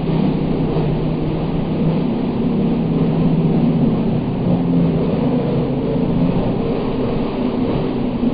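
STIHL MS 211 two-stroke chainsaw running steadily at high revs while cutting hedge growth, its engine note holding a steady pitch throughout.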